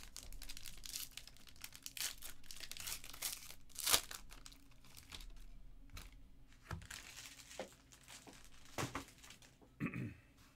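A Panini Obsidian football card pack's wrapper being torn open and crinkled as the stack of cards is pulled out, in irregular crackles with one sharp, louder crackle about four seconds in.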